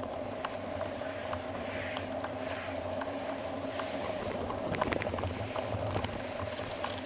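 Bicycle riding along a paved path: a steady rolling noise from the tyres and moving bike, with irregular light clicks and rattles.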